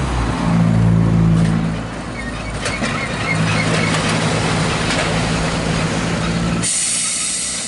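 Manx Electric Railway electric tram car running past: a steady low hum from its motors over the rumble of the wheels on the rails, with a few clanks. About seven seconds in, the running sound cuts off abruptly, leaving a steady hiss.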